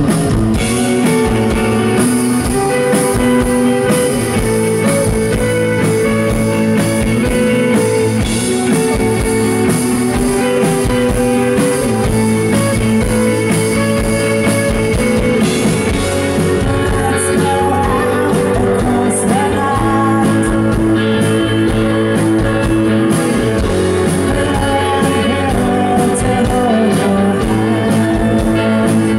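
Rock band playing live: electric guitars, drums and keyboards, with a woman's singing voice joining near the end.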